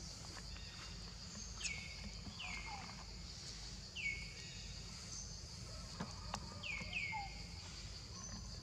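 Steady insect drone with a bird repeating a short falling call about six times.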